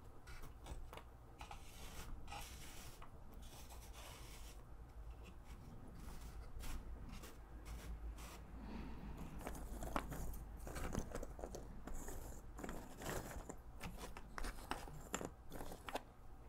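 Cardboard jigsaw puzzle pieces handled by fingers: irregular little clicks and taps as pieces are picked up and dropped, and brushing scrapes as the hand sweeps and rummages through pieces lying on the cardboard of the box.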